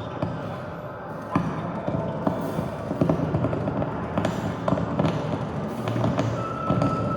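Free-improvised experimental music for turntables and drums: irregular knocks and taps of percussion over a dense, noisy texture. A steady high tone comes in near the end.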